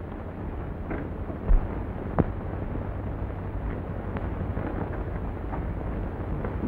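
Old optical film soundtrack noise: a steady low rumble with crackle, broken by a dull thump about a second and a half in and a sharp click shortly after.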